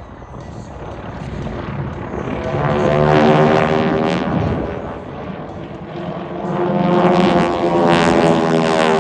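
A formation of propeller-driven aerobatic airplanes flying past with a droning engine note. It swells, fades a little about five seconds in, then swells again as the planes come by, its pitch shifting slightly.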